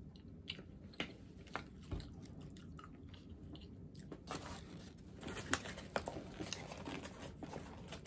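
Close-up chewing of a bite of crispy fried chicken sandwich: crunches and mouth sounds. They get busier from about halfway, and near the end a paper sandwich bag rustles.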